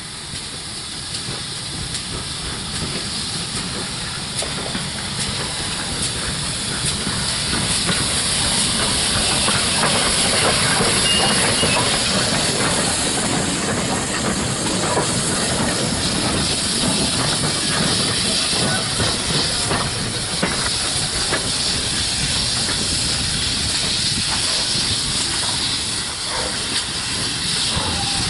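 GWR 2800 Class 2-8-0 steam locomotive running light engine, hissing steam as it approaches and passes close by, growing louder over the first ten seconds or so and then staying loud.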